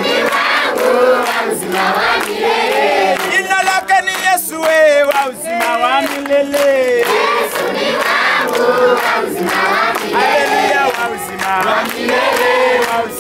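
A crowd of many voices praying aloud and crying out at once, loud and overlapping, with a rapid warbling cry from about three and a half to five seconds in.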